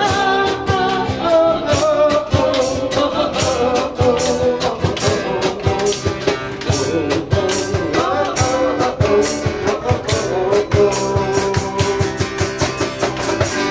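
Live acoustic band: a man sings through a microphone while strumming an acoustic guitar, backed by an electric bass.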